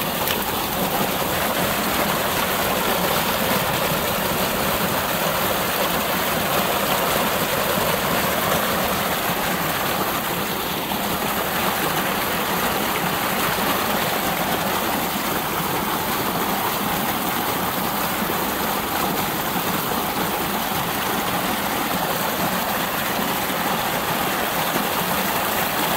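Water gushing steadily out of a black corrugated plastic drain pipe and splashing down a rocky channel: the drain running full, its beaver blockage cleared.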